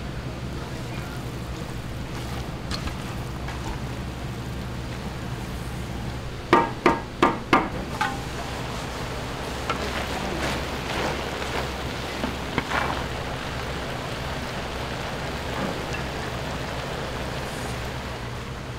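Four quick, sharp knocks with a short metallic ring, a cooking utensil tapped against the rim of a large metal pan, over a steady low hum. A few seconds later come lighter clinks and rustling as the cooked wild greens in the pan are stirred.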